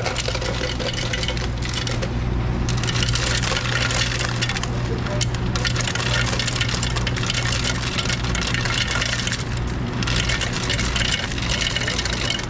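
Ice cubes clattering out of a soda fountain's ice dispenser into plastic cups, in several runs a few seconds long with short breaks between them, over a steady low hum.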